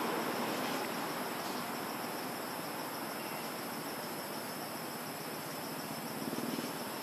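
Steady outdoor ambience: an even hiss with a constant high-pitched insect drone.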